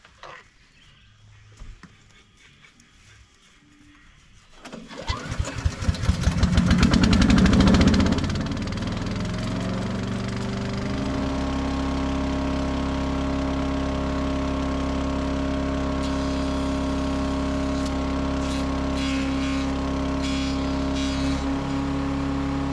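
Small gasoline engine of an Earthquake chipper-shredder starting about five seconds in, running up loud for a few seconds, then settling into steady running.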